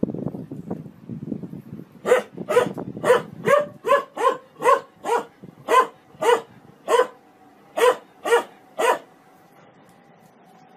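A medium-sized dog barking at a running front-loading washing machine: a quick series of about fourteen sharp barks, roughly two a second, starting about two seconds in and stopping near the end, after which only a faint steady hum is left.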